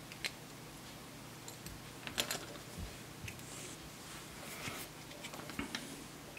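Light handling clicks and taps of an aluminium LED board and soldering tools on a bench mat, with a brief cluster of clicks about two seconds in.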